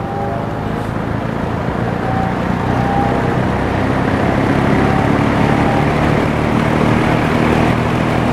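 Penncrest 50 box fan with its McMillan motor running on medium speed: a steady rush of air from the blades over a low motor hum, growing a little louder over the first few seconds.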